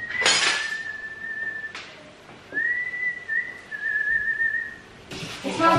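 A man whistling a few long, held notes, with small steps and a wobble in pitch, in two phrases. Kitchenware clatters sharply about a quarter of a second in, with a lighter knock near two seconds.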